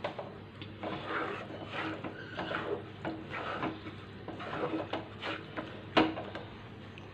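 Black slotted spatula scraping and stirring thick masala paste with yogurt around a nonstick kadhai, in repeated strokes, with a sharp knock about six seconds in. The masala is being fried and stirred without pause so the yogurt does not split.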